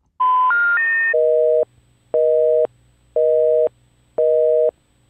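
Telephone network tones: three short tones stepping up in pitch, the special information tone that marks a call that cannot be completed, followed by a busy signal of two tones together pulsing about once a second, four pulses long.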